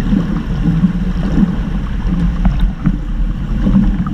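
Muffled underwater churning and low rumble of water stirred by swimmers kicking and pushing off, picked up by a camera submerged in a pool.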